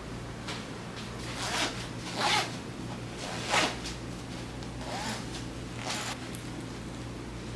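A zipper on a bag being pulled in about five short strokes, the two loudest in the middle.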